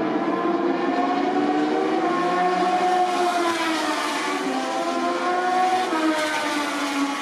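Several Moto2 bikes' Triumph 765 cc three-cylinder engines revving and pulling away from a practice start. Their pitches overlap, rising and falling over the whole stretch.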